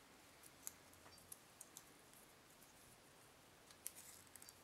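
Near silence, with faint rustling and a few soft ticks from fingers threading a thin elastic cord through a paper tag's eyelet.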